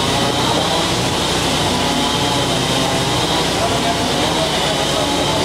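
A woodworking power machine running steadily, a loud even noise with a constant high whine.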